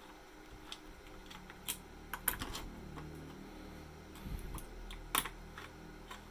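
Scattered light clicks and taps of hardware being handled inside an open Dell PowerEdge R630 server chassis, over a faint steady low hum.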